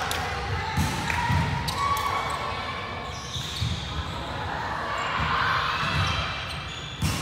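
Echoing sports-hall din between volleyball rallies: a volleyball bouncing on the wooden court with a few scattered thuds, under players' distant voices.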